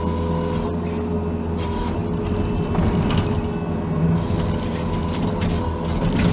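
Case TV450 compact track loader's diesel engine running steadily at working revs, with a steady whine and a few short knocks and clanks from the machine as it works, heard from inside the cab.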